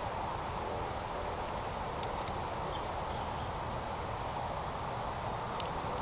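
Room tone: steady background hiss and low hum with a constant thin high-pitched whine, and a few faint ticks.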